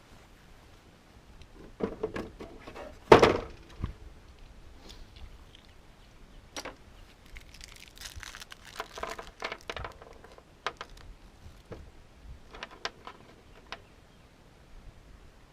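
Scattered clunks, clicks and rattles of hands and tools working on a vehicle battery and its terminals: one loud thunk about three seconds in, then a flurry of small knocks and clicks later on.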